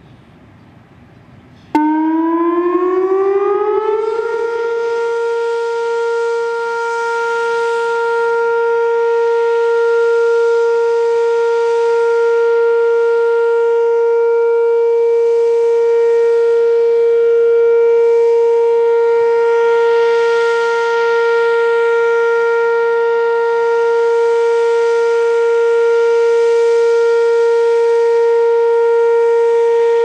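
Whelen WPS-2806 electronic tornado warning siren sounding its test. About two seconds in it starts abruptly, glides up in pitch for a couple of seconds, then holds one steady, loud tone with overtones.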